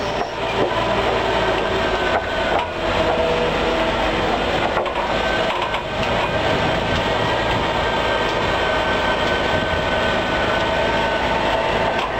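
Tractor pulling a multi-row maize planter through tilled soil: a steady machinery drone with a constant whine, the planter's row units rattling over the ground, and a few sharper knocks.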